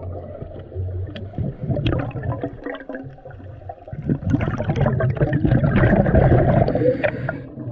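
Water gurgling and bubbling, fuller and louder from about four seconds in until shortly before the end.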